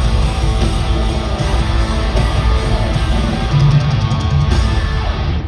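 Live rock band playing loud in an arena, with electric guitar, drums and heavy bass, captured on a phone's microphone.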